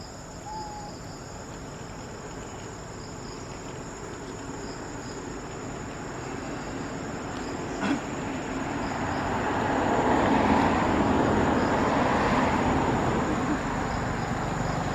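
Steady high-pitched insect buzz, with the road noise of a passing vehicle swelling up from about halfway through, peaking, then easing off near the end.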